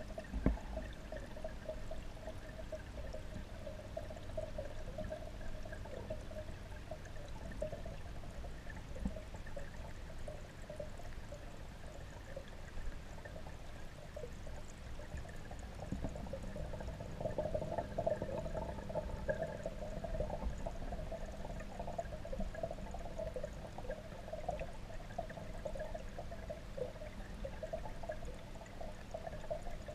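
Steady running, trickling water, heard muffled underwater in a garden fish pond. A single thump about half a second in.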